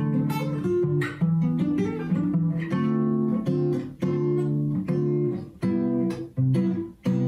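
Acoustic guitar played by hand: a run of strummed and picked chords, with brief gaps between groups of notes.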